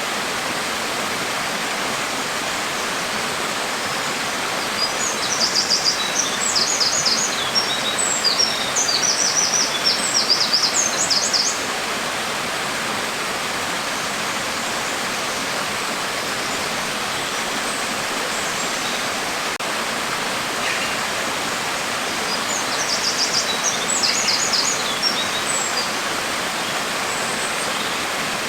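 Steady hiss of falling rain. A bird chirps in quick runs of high calls twice over it, for several seconds about five seconds in and again about twenty-three seconds in.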